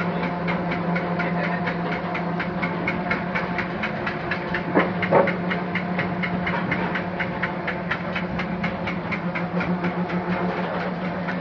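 Wood-post impregnating machine running as a round wooden post feeds through. A steady machine hum carries a rapid, even clicking of about seven or eight a second.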